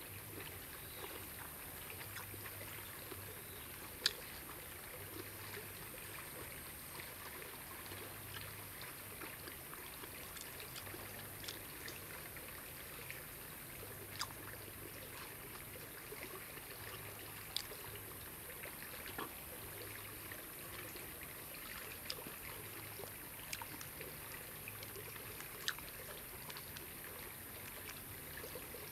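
Shallow stream trickling steadily. A few sharp clicks are scattered through it, the loudest about four seconds in.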